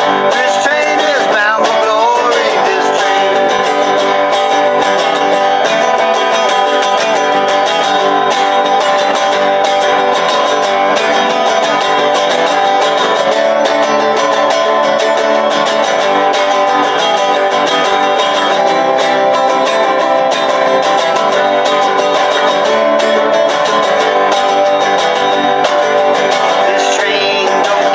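Folk duo playing: a strummed resonator guitar and a harmonica on a neck rack, with a banjo alongside.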